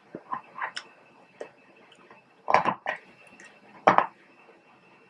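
Cooked crab shell being pried apart and picked by hand: scattered small cracks and wet clicks, with two louder cracks about two and a half and four seconds in.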